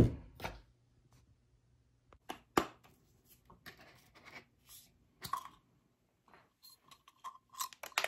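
Metal parts of a Heihox travel hand coffee grinder being handled: a sharp knock at the start and another just after, then scattered clicks and light scrapes, a few with a brief ring, as the grinder body is twisted apart and the catch cup comes off.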